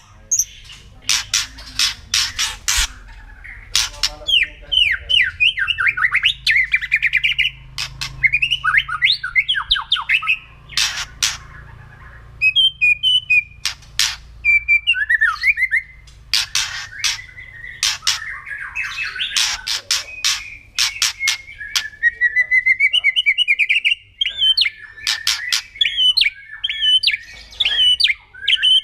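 White-rumped shama (murai batu) singing. Clusters of sharp crackling clicks, its 'kretekan' rattle, alternate with rapid warbled whistled phrases.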